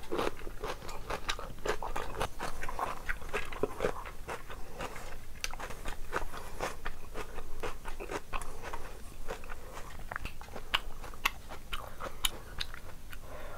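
Close-miked eating: chewing and wet mouth smacking, with sticky squelching as fingers mix rice and curry, making a dense run of irregular small clicks and smacks.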